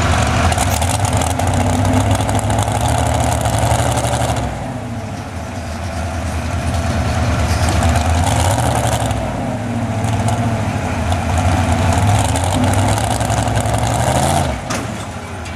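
Heavy vehicle engine running, easing off about four seconds in, then building up and easing off again a couple of times.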